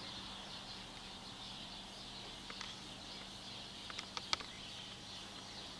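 Quiet background noise: a steady high hiss over a faint low hum, with a few sharp clicks, the loudest about four seconds in.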